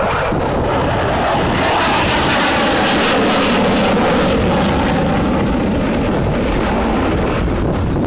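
Saab JAS 39 Gripen fighter flying past, the jet noise of its single Volvo RM12 turbofan loud and continuous. The noise swells to its fullest and hissiest about three to four seconds in, then eases off a little.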